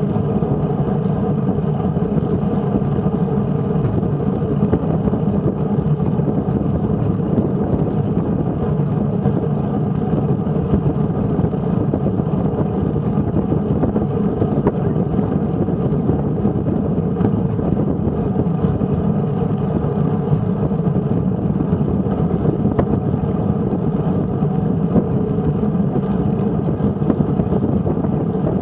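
Steady wind rush and tyre-on-road noise picked up by an action camera's microphone on a road bicycle riding at speed.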